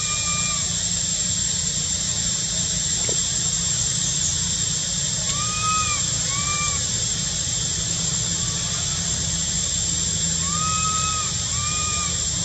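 Young macaque giving short, arched, whistle-like coo calls: one at the start, then two pairs about five seconds apart. This is a young monkey whistling for milk. The calls sit over a steady high hiss and a low rumble.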